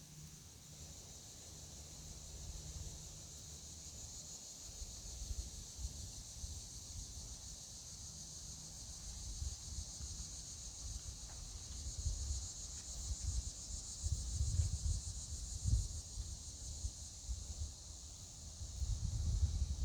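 Steady high-pitched chorus of insects, with gusts of wind buffeting the microphone that grow stronger toward the end.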